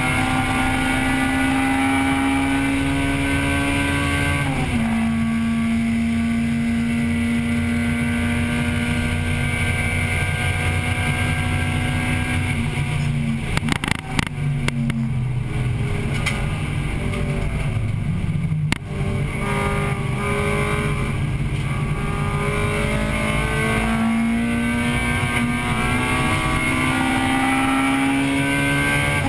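In-cabin sound of a 1998 Acura Integra Type-R's 1.8-litre VTEC four-cylinder running hard on track, revs climbing through the gears with sudden drops in pitch at each upshift. About halfway the revs fall away with a cluster of sharp knocks, and there is another single knock a few seconds later before the engine pulls up through the gears again.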